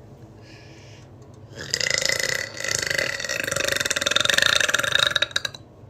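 A long, loud, drawn-out belch. It starts about two seconds in, dips briefly, then carries on for about three seconds more. It is one of a run of repeated belches put down to acid reflux.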